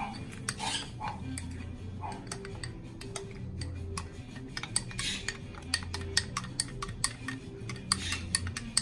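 Metal spoon stirring cornstarch into milk in a drinking glass, clinking against the glass in a quick, uneven run of ticks.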